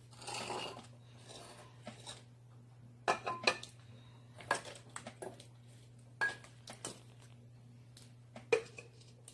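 Small ceramic pots clinking and knocking against one another as they are picked up and set down: about half a dozen scattered sharp knocks, after a short scraping rustle near the start.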